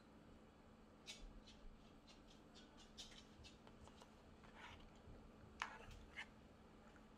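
Faint light clicks and crinkles of plastic bento takeout trays and utensils being handled: about a dozen small clicks starting about a second in, with a sharper click and crinkle near the end.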